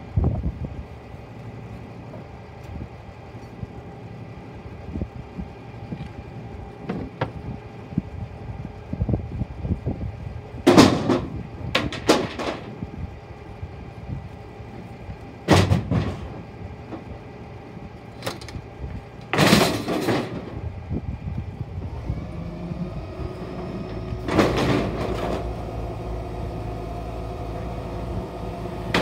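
2002 Dennis Phoenix refuse truck idling, with several loud wooden crashes and cracks as timber goes into the rear hopper and is broken up. From about two-thirds of the way in, the engine speeds up and a rising hydraulic whine joins it as the compactor works.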